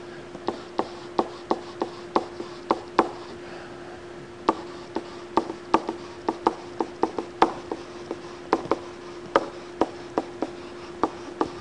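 A stylus clicking and tapping on a tablet screen during handwriting: irregular sharp clicks, two to three a second, with a short pause a few seconds in. A faint steady hum runs underneath.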